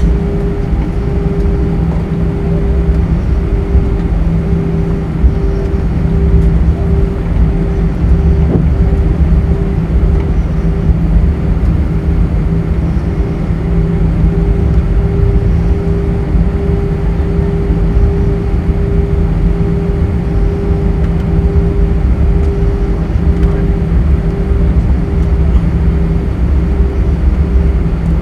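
Airbus A320 cabin noise while taxiing: the jet engines at idle give a steady hum with two steady tones over a low rumble from the wheels rolling on the pavement, heard inside the cabin.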